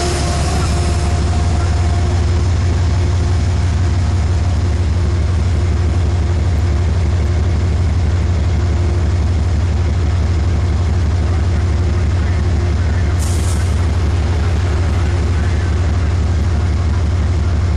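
Metro-North P32AC-DM diesel locomotive's GE V12 prime mover idling while standing, a steady low drone throughout. A brief hiss cuts in about 13 seconds in.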